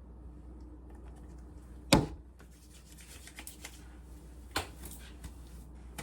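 Handling sounds: a sharp knock about two seconds in and another a little before the end, with light clicking and rustling between them, over a steady low hum.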